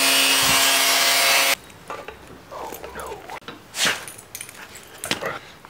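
A power saw running as it cuts through a turbo oil drain hose, cutting off abruptly about a second and a half in. Then quieter handling sounds follow, with short squeaks, clicks and a knock about four seconds in, as a fitting is worked onto the hose end held in a vise.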